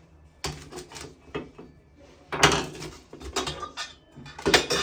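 Metal shower-faucet trim and tools being handled: a run of clinks, clicks and knocks, with the loudest clatters about halfway through and again near the end, as a faceplate is worked off.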